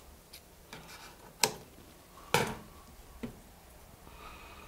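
Electrical tape being handled and pressed down around the edge of a resin printer's LCD screen: a handful of sharp taps and clicks, the two loudest about a second apart.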